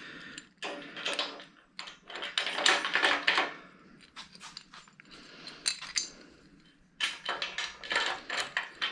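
Metal brackets being handled, with irregular clinks and clatters in several short clusters.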